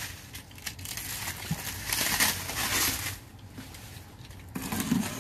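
Plastic stretch wrap crinkling and rustling as it is pulled back from boxes on a pallet. It is loudest for about the first three seconds, then gives way to quieter handling of the boxes with a few light knocks.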